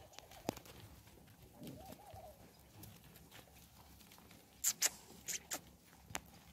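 Quiet goat pen with a faint goat bleat about two seconds in, then a few sharp clicks, the loudest a close pair a little past the middle.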